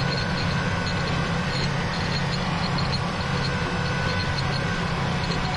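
John Deere 8270R tractor's six-cylinder diesel running steadily while pulling a subsoiler through stubble, with a faint regular high ticking a few times a second.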